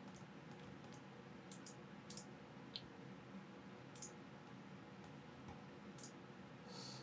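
Near silence with a handful of faint, scattered computer mouse clicks from a Logitech MX Master 2S.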